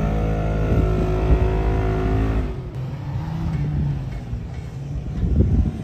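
Off-road vehicles' engines revving hard as they climb a steep sand hill. One sustained high-revving pull breaks off suddenly about two and a half seconds in, followed by a lower engine note that rises and falls as the next vehicle, a Toyota 4Runner, pulls up the slope.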